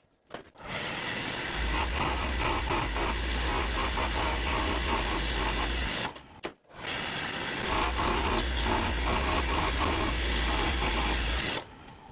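Wood lathe running while a parting tool cuts into a spinning mahogany blank: a steady rough scraping hiss over a low motor hum. The cut stops briefly about six and a half seconds in, then resumes.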